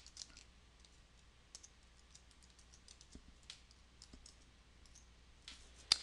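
Computer keyboard being typed on: a run of faint, irregular key clicks, with one sharper, louder click just before the end.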